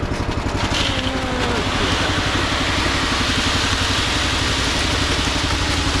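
Engine running steadily with a rapid low throb, joined about a second in by a rushing noise that holds to the end.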